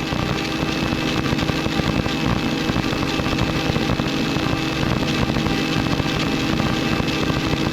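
Steady drone of a helicopter's engine and rotor heard in the cabin, with a constant hum and a faint steady whine over it.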